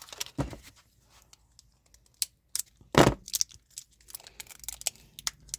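Battery packaging being handled and torn open by hand: crinkling and tearing with many short sharp clicks, and one louder knock about three seconds in.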